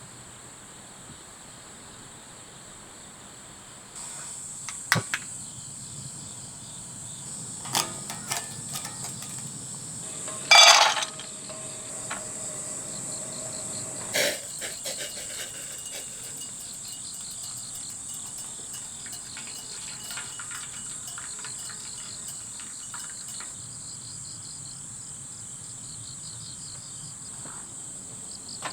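Crickets chirping steadily in a high, even drone. Several sharp knocks and clicks come in the middle, the loudest a short clatter about ten seconds in.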